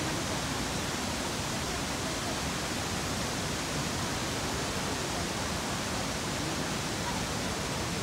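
Iguazú Falls: water pouring over the falls and through the cascades just below, rushing as a steady, unbroken noise.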